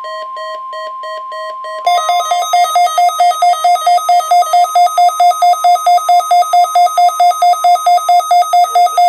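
The NOAA Weather Radio 1050 Hz warning alarm tone holds steady under a Midland weather radio's pulsing alert beeps, about four to five a second: a receiver being set off by the weekly test tone. About two seconds in, a second, louder beeping alarm a little higher in pitch starts over it as another receiver activates. The steady tone ends shortly before the close.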